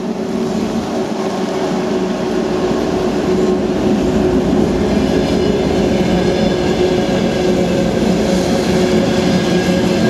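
Twin-section 2M62U diesel locomotive passing close by with its two-stroke diesel engines running, then its train of coaches and flat wagons rolling past with a steady rumble of wheels on rails. A faint high ringing from the wheels joins about four seconds in.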